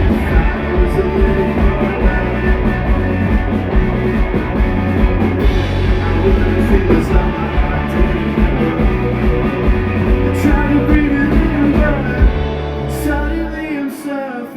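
Live rock band playing loud: drums, bass and guitars together. Near the end the bass and drums drop out, leaving a quieter, thinner passage.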